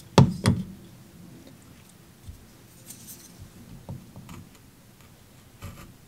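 Two sharp knocks as a folding pocket knife is set down on a cutting mat, followed by faint clicks and rustles of the knives being handled.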